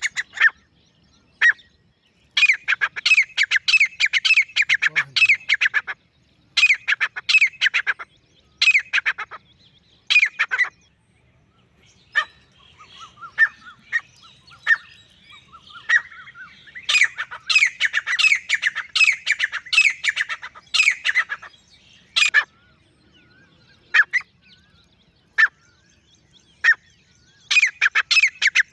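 Male grey francolin calling: bouts of loud, sharp repeated notes with short pauses between them, thinning to single notes in the later part before a fresh fast bout near the end.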